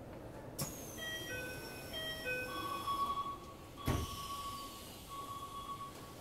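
An electronic chime melody of short steady notes, followed by a series of long, evenly spaced beeps of one pitch. A thump comes about half a second in and another about four seconds in.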